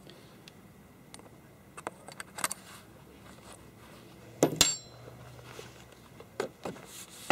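Metal clinks and knocks from handling a chainsaw: the chain and bar rattle and a hand tool taps against them. There are a few small clicks, then one louder clank about halfway through that rings briefly, then more clicks near the end.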